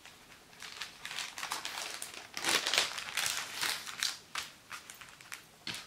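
Sheet of clear cellophane (crystal film) crinkling as it is folded around a greeting card and its envelope. The crackles come in irregular bursts and are loudest in the middle.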